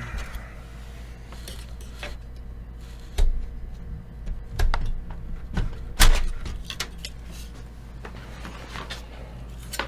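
Clatter and knocks of hardware being handled and moved about, several short separate clunks with the loudest about six seconds in, over a steady low hum.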